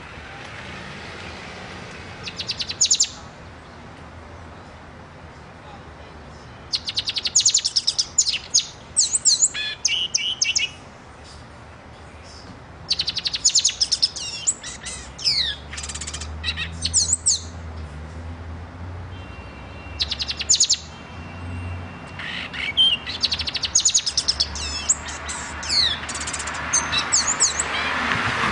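Caged black-and-white pet songbird singing in repeated bouts: a rapid dry trill, then quick whistled notes sweeping up and down, with short pauses between bouts.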